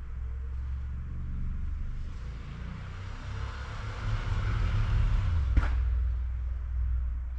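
A motor vehicle passing over a steady low rumble: the hiss of its tyres swells and fades around the middle. There is one sharp click about five and a half seconds in.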